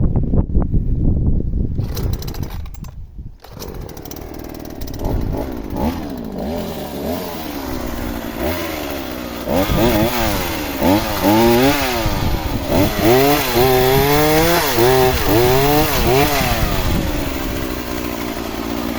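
Two-stroke chainsaw cutting wood. Its engine revs up and down again and again through the middle of the stretch, then settles to a steady idle near the end.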